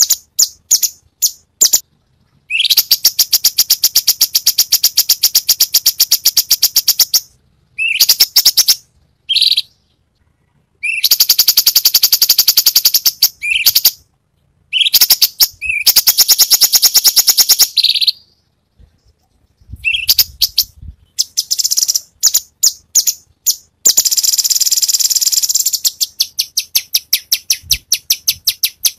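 A Cucak Cungkok singing a fast, varied song: long, rapid rattling trills lasting a few seconds each, some opening with a quick upward sweep, broken by short chips and brief pauses.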